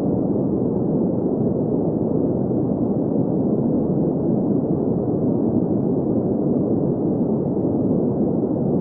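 Steady green noise: an even, unbroken rushing hiss centred in the low-middle range, with nothing above about 2 kHz.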